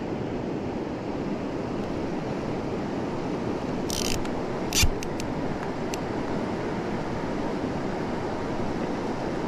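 Steady rush of a shallow river riffle running over gravel and stones, with two brief rustles near the middle.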